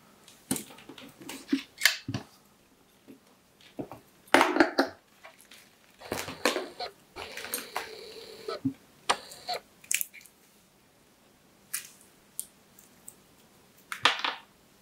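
Handling noise from a plastic Mustool X1 clamp meter and its test leads being moved by hand on a work mat: a series of clicks, knocks and rattles, with a longer rustling stretch in the middle and a final knock near the end.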